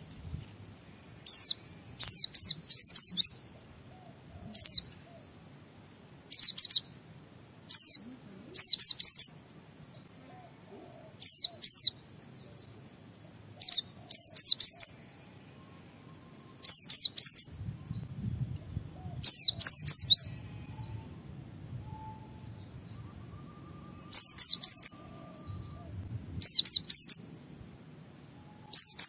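White-eye (pleci) singing: short bursts of a few quick, high, downward-sliding chirps, repeated every second or two with brief pauses between.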